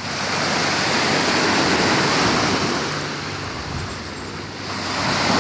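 Small lake waves washing up on a sandy shore, a steady rush that swells, eases off past the middle and swells again near the end.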